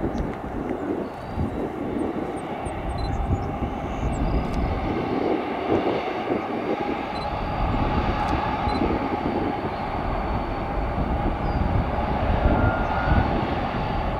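FedEx Boeing 767-300F freighter taxiing past, its two jet engines running at taxi power with a steady rumble and a faint whine.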